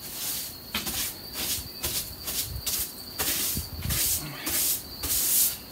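A long-handled tool scraping and brushing against an old wooden window sill, clearing out built-up dirt and debris. It comes as a string of short, rough, hissy strokes, roughly two a second and irregular.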